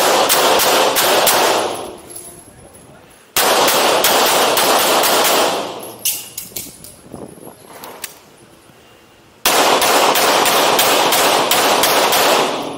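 Pistol fired in rapid strings of several shots a second, three strings with short pauses between, each shot echoing in an indoor shooting bay.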